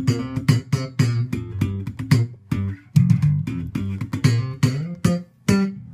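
Guitar played as a quick run of single plucked notes, about three to four a second, in the low register; the last note near the end is left to ring out and fade.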